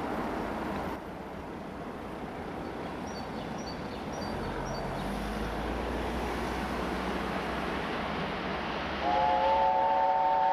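Steady outdoor rumble and hiss, then, about nine seconds in, an approaching steam locomotive sounds its whistle: a loud chord of three steady notes, held on.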